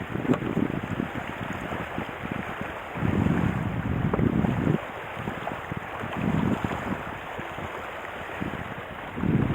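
Wind buffeting the microphone in low rumbling gusts over a steady rushing hiss of water, as from a kiteboard moving across the lake.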